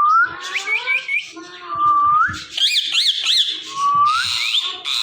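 Indian ringneck parakeet whistling: three rising whistles, with a run of three quick chirps between the second and third.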